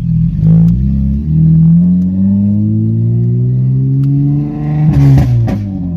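2009 Honda Accord V6 coupe's 3.5-litre V6 running through a muffler-deleted, straight-piped exhaust under light acceleration, its note rising slowly and steadily, heard from inside the car. About five seconds in the note breaks and changes briefly.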